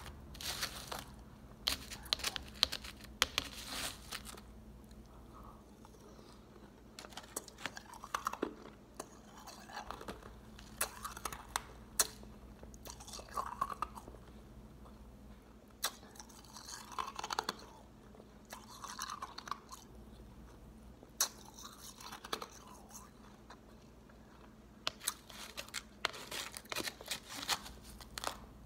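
Crushed ice being chewed close to the microphone: bursts of crisp, crackling crunches, a mouthful at a time, with short pauses in between.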